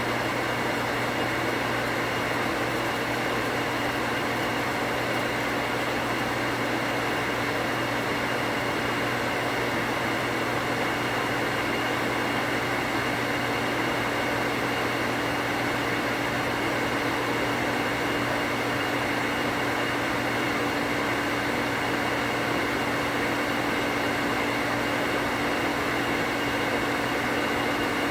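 A 1 horsepower cast-iron booster pump's electric motor running loud and steady as it builds water pressure. It hums evenly with no chatter or on-off cycling from the pressure switch.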